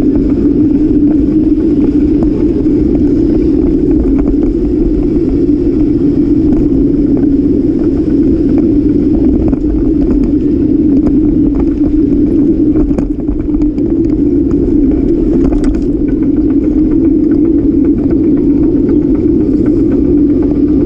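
Steady, loud rumble of wind and tyre noise on a bicycle-mounted camera while riding, with scattered small clicks and rattles.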